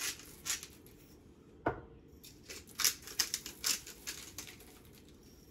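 Hand-twisted salt and pepper grinders being cranked, making a rapid series of short, crisp grinding clicks. A single knock comes about a second and a half in.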